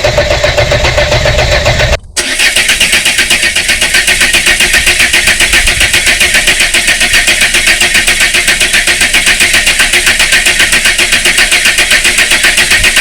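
Volvo 480's starter motor cranking the engine, with an even pulsing of about five beats a second that never rises into running. This is the car's no-start fault. The sound breaks off briefly about two seconds in.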